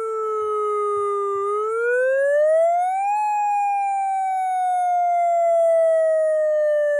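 Electronic siren played through an IP-15 horn speaker, sounding a wail: the tone sinks a little, climbs steeply for about two seconds, then slowly falls again.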